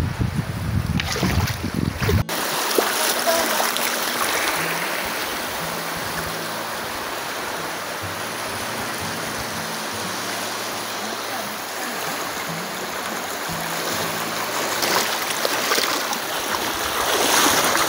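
Steady hiss of choppy shallow water and small waves, with wind buffeting the microphone for the first two seconds. Faint music with low notes runs underneath.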